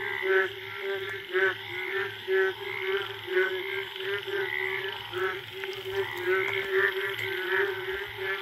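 A dense chorus of frogs calling, the breeding calls that follow the first monsoon rain. Several kinds of calls overlap: a steady low call runs underneath while higher calls repeat about twice a second.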